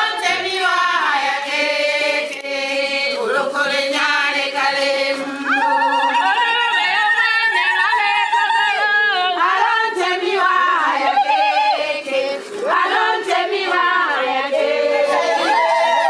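A group of Sukuma women singing a traditional song together, unaccompanied, several voices at once with wavering, gliding pitch.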